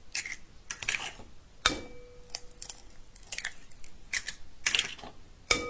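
Raw eggs being cracked one after another over a glass bowl: a string of sharp taps and shell crackles as the shells are broken and pulled apart. Twice a harder tap sets the glass bowl ringing with a clear tone.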